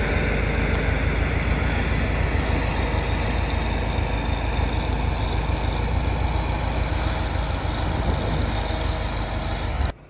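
John Deere 544 wheel loader's diesel engine running steadily as the loader pulls away through the snow; the sound stops suddenly near the end.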